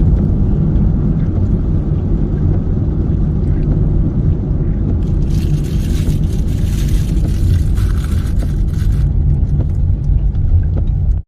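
Road and engine noise inside a moving car: a steady low rumble, with a rushing hiss rising over it from about five to nine seconds in.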